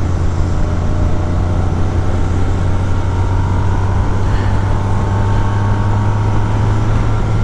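Motorcycle engine running steadily at cruising speed, a constant low drone, with wind and road noise on the moving bike.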